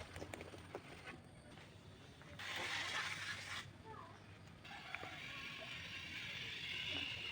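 Hand tool working wood: a few light taps, then a rasping stroke of about a second and, from about halfway, a longer, fainter rasp.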